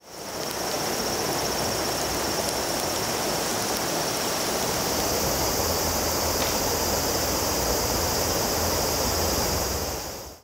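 A river flowing: a steady rush of water that fades in at the start and out at the end, with a steady high-pitched hiss above it.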